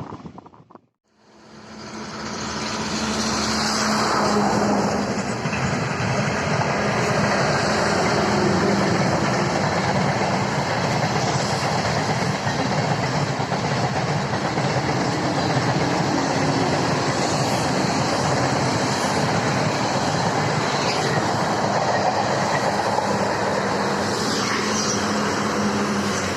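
Electric-locomotive-hauled train passing close by: a steady rush of wheel-on-rail noise that builds up over the first few seconds and stays loud throughout.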